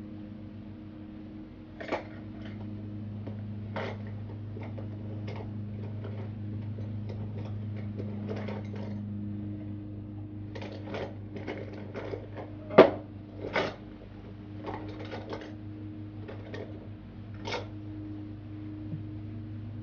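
Irregular clicks and knocks of small hard objects being handled, the sharpest about two-thirds of the way through, over a steady low electrical hum.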